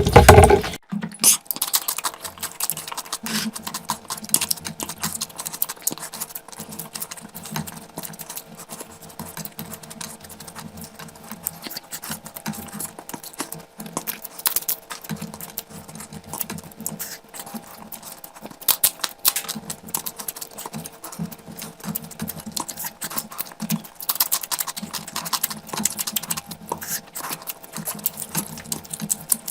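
Close-miked eating sounds: wet chewing and mouth smacking, a dense run of small irregular clicks. A louder burst in the first second cuts off abruptly.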